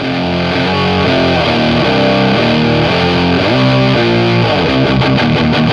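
Electric guitar played through an Electro-Harmonix Hell Melter distortion pedal, giving the heavily saturated "Swedish chainsaw" (Boss HM-2 style) metal tone. Distorted chords ring for about half a second each, with a couple of downward pitch slides, then break into fast chugging, about eight strokes a second, near the end.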